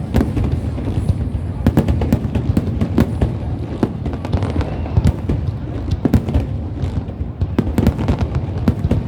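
Fireworks going off up close: a rapid, uneven stream of sharp bangs over a continuous low rumble, with no pause.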